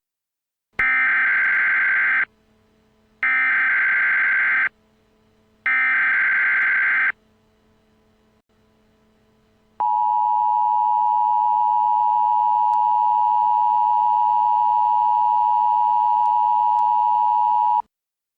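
Emergency Alert System tones opening a tornado warning: three bursts of SAME digital header data, each about a second and a half long with a short gap between, then the steady two-tone attention signal held for about eight seconds, which cuts off abruptly.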